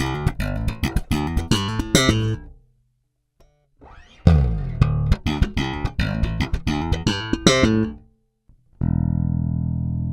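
Cort Space 5 headless five-string electric bass played slap style, unaccompanied: two quick runs of thumped and popped notes with a short pause between them, then a held note ringing steadily near the end.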